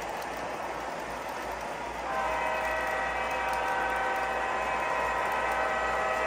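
Steady rushing and rumbling of O-gauge model diesel locomotives running on three-rail track. About two seconds in, a model locomotive's onboard sound system blows a steady multi-chime diesel horn that is held to the end.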